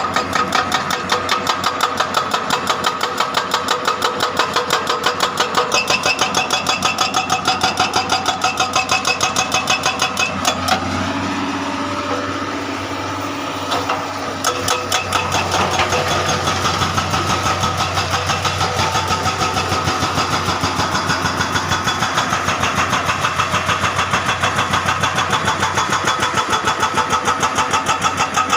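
Hydraulic excavator's diesel engine running under work, with an even rhythmic clatter of about three to four beats a second that drops out for a few seconds around the middle and then comes back.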